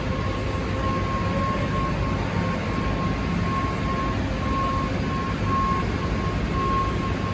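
Steady, loud machinery noise with a low rumble and a thin whine that pulses on and off.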